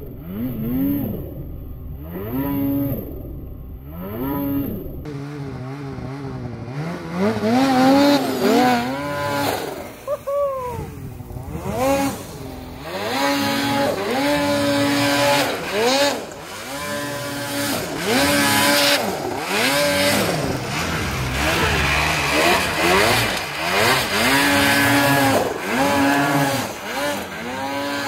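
Ski-Doo mountain snowmobile's two-stroke engine revving up and down again and again as the rider works the throttle through deep snow, its pitch rising and falling every second or two.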